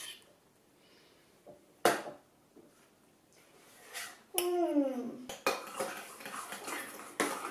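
Metal spoon clinking and scraping against a stainless steel bowl while stirring slime. There is one sharp clink about two seconds in, then more clinks and scraping near the end.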